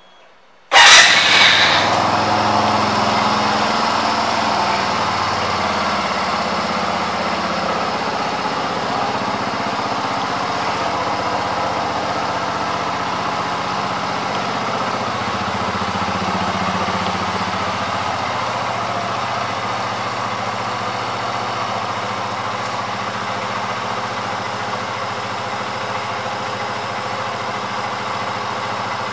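2022 Benelli TNT 135's single-cylinder four-stroke engine starting about a second in, loudest as it catches, then idling steadily.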